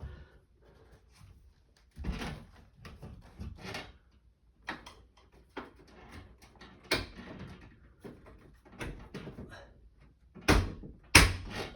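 Aluminum mini blind being fitted into its mounting brackets: scattered clicks and rattles of the metal headrail and slats, then two louder snaps near the end as the headrail locks into the bracket.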